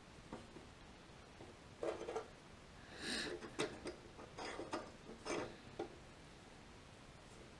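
Hand tap being turned to retap a 10-24 threaded hole in thin sheet metal that still holds a broken screw: faint scattered clicks and short metallic scrapes, bunched from about two to six seconds in.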